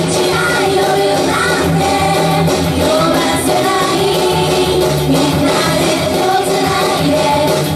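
Live J-pop idol song: two female singers singing into microphones over loud, steady pop backing music.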